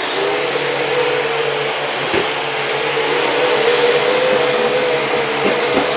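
Toy RC quadcopter's propellers and small motors whining steadily in flight, the pitch wavering slightly, with a few light knocks about two seconds in and near the end.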